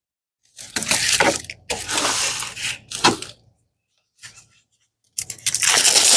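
Plastic packaging crinkling and rustling as it is handled, in several bursts with a sharp click about three seconds in.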